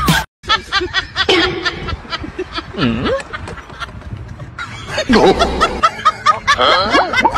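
Snickering, chuckling laughter in short repeated bursts, picking up again about five seconds in after a brief gap at the start.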